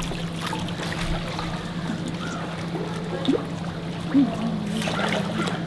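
Water trickling and lapping in an otter pool over a steady low hum, with a couple of brief louder sounds about three and four seconds in.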